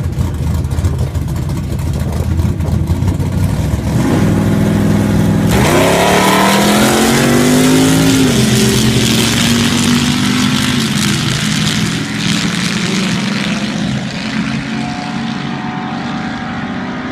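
Vintage coupe drag car's engine idling loudly at the starting line, stepping up about four seconds in, then revving hard on launch with its pitch climbing steeply. It drops at a gear change about eight seconds in, and the engine note then fades slowly as the car runs away down the strip.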